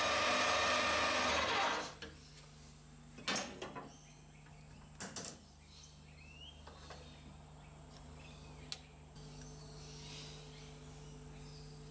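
Metal lathe running steadily with its motor and gearing humming, then stopping about two seconds in. After that, a few short knocks and clicks as the aluminium disc is handled and taken off the lathe.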